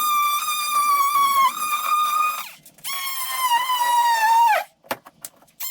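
Handheld power tool cutting into drywall: a high-pitched motor whine that runs for about two and a half seconds, stops, then runs again for under two seconds and drops in pitch as it is switched off, followed by a few short clicks.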